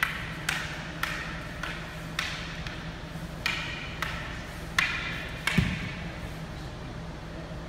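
Rattan escrima sticks striking each other in a stick-fighting drill: about eight sharp wooden clacks, each with a short ring, irregularly spaced over the first six seconds. The last clack comes with a dull low thump. A faint steady hum runs underneath.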